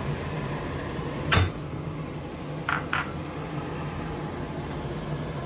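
A cooking utensil knocks sharply once against a pot, then gives two light clinks about a second and a half later, over a steady low hum.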